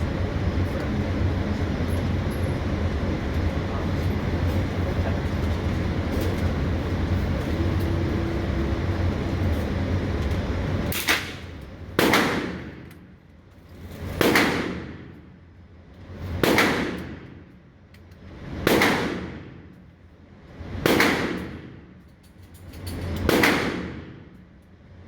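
Gunshots at an indoor shooting range: about eleven seconds of steady low rumble, then seven shots at an even pace about two seconds apart, each sharp and dying away over about a second.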